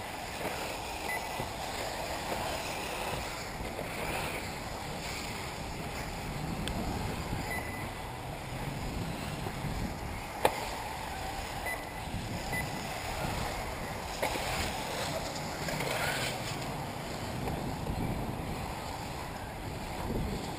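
1/8-scale electric RC off-road buggies racing round a dirt track: a steady whir of motors, drivetrains and tyres, with now and then a rising whine as a car accelerates. A single sharp click sounds about halfway through.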